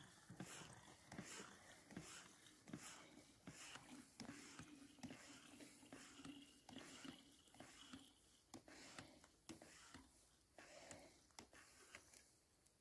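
Faint, rhythmic strokes of a Katadyn hand-pump water filter being pumped, about one stroke every three quarters of a second, pushing water through the filter into a bottle.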